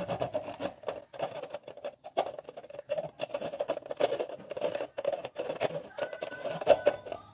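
Thin plastic bottle scraping and crinkling as it is turned by hand on concrete against a pen tip, which rubs along the plastic to mark a line round it. It comes as an irregular run of small clicks and scrapes.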